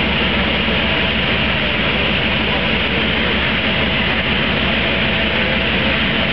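Loud, steady mechanical running noise at a chassis dynamometer, with no revving or change in pitch.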